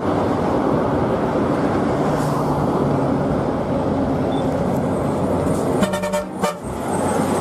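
NPM intercity coach driving by on a highway, with steady engine and road noise, and a short horn blast about six seconds in.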